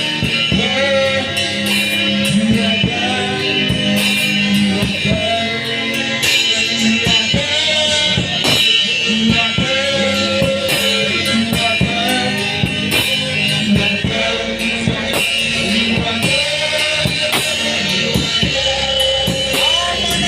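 Live worship band playing continuously: guitar and drum kit, with voices singing over the music.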